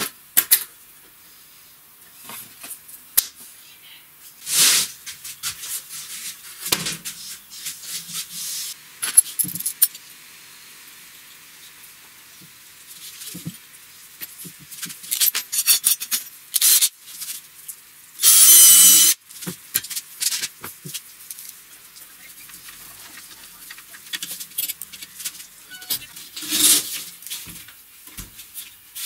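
Small metal hinges and a latch being handled and set on wooden boards: scattered clicks, taps and light metallic rattles. About two-thirds of the way through comes a louder rush of noise lasting about a second.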